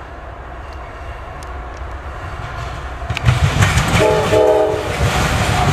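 CSX freight train's lead diesel locomotives approaching and passing close, their engine and wheel rumble growing steadily louder and heavier from about three seconds in. A short horn chord sounds about four seconds in.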